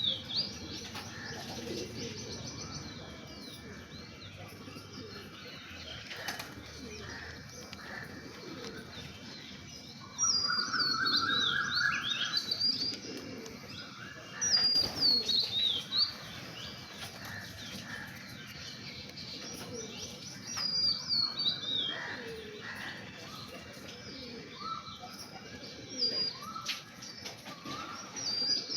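Birds at a drinking pot: a small bird repeats a high, quickly falling chirped phrase every few seconds, over low cooing from rock pigeons and some wing flapping.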